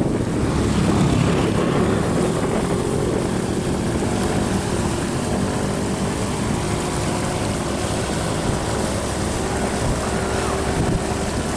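An engine droning steadily under a rush of wind on the microphone. A steady pitched hum comes in about four seconds in and holds.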